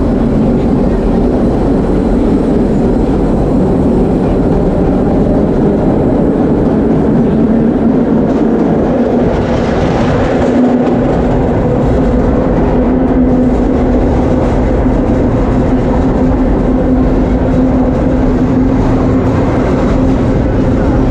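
Vintage 1930s subway train running, heard from inside a car: a steady loud rumble of wheels on rail with a low hum that grows stronger about halfway through.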